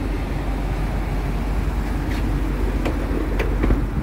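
2015 Isuzu NPR's gasoline V8 engine idling steadily, a low even rumble; a few light clicks sound in the second half.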